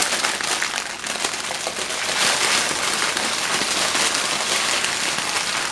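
Plastic bag of dark chocolate chips crinkling and crackling steadily as it is handled, a dense run of fine crackles.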